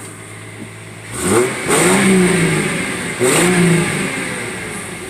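1997 Ford Mustang's 3.8-litre V6 idling, then revved twice about a second in, each rev rising and falling back before it settles to idle again. It is running smoothly after a broken spark plug was replaced to cure a misfire.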